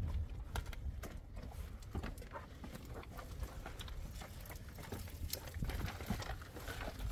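Footsteps scuffing and crunching on rock and loose stones along a mountain path: irregular clicks and scrapes, over a steady low rumble.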